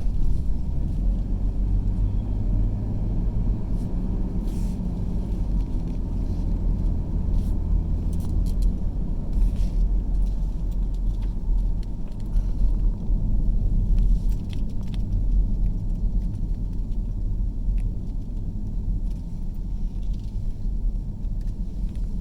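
Car driving, heard from inside the cabin: a steady low rumble of engine and road noise, with a few faint ticks and rattles scattered through.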